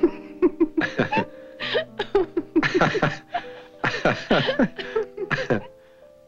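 A woman laughing in a run of short bursts over soft background music. The laughter stops a little before the end, leaving the music.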